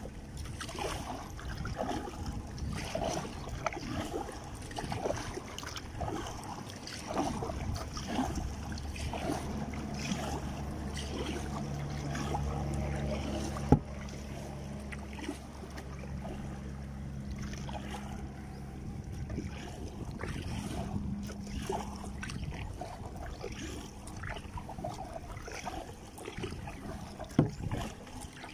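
Kayak paddle strokes: uneven splashing and dripping water. A steady low hum runs through the middle stretch, and there are two sharp knocks, one about halfway through and one near the end.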